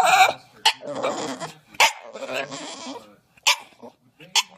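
A dog barking in several short, sharp barks at uneven intervals, with rougher sounds between them.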